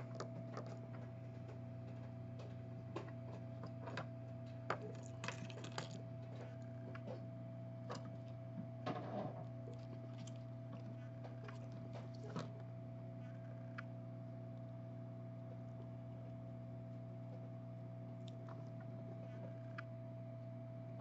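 Scattered light clicks and taps of small hand tools working on a phone circuit board during soldering, over a steady electrical hum with a faint steady tone.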